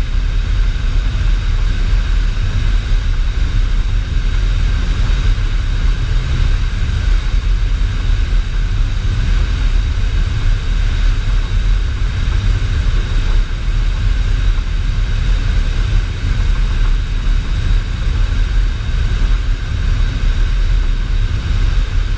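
Loud, steady roar inside a C-17's cargo hold in flight with the rear ramp open: rushing air and the jet engines make a heavy low rumble, with faint steady whines above it.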